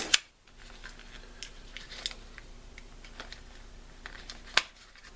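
Small hard clicks and light handling noises of a laptop RAM module being worked out of its slot, with two sharp clicks, one just after the start and one near the end.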